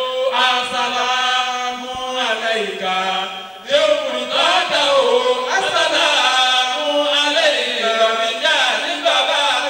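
Men chanting an Islamic devotional melody into microphones, in long drawn-out melodic lines, with a short break a little under four seconds in.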